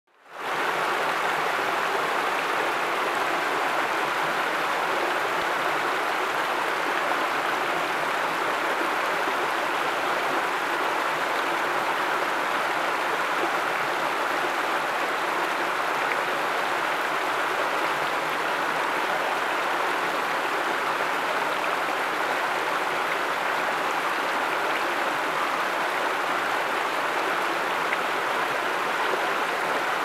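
Small waterfall cascading over stepped rock ledges: a steady rush of falling and splashing water that fades in at the very start.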